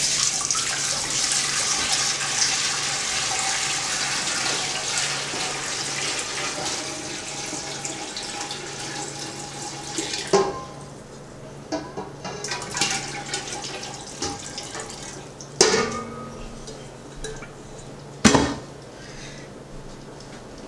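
Water poured from a pot into a large, empty stainless steel stockpot, splashing loudly at first and thinning out over about ten seconds as the stream narrows. Then a few sharp knocks of metal cookware follow.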